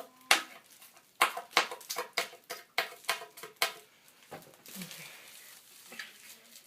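A quick run of about a dozen sharp metallic clicks and scrapes, with a slight ring, as an Allen key is worked against metal handlebars to pick tape off them; quieter scuffling follows in the last couple of seconds.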